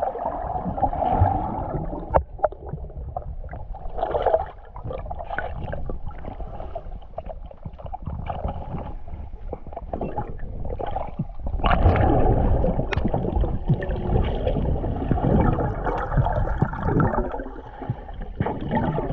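Water gurgling and bubbling around a camera held underwater during a freedive, irregular and noisy, growing louder for several seconds past the middle.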